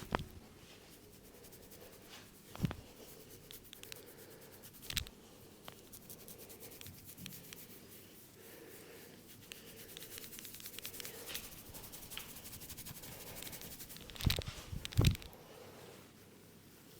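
Hands rubbing and scratching through hair and over the scalp in a head massage: a scratchy rasp, denser in the second half. A few soft thumps break in, and the loudest two come close together near the end.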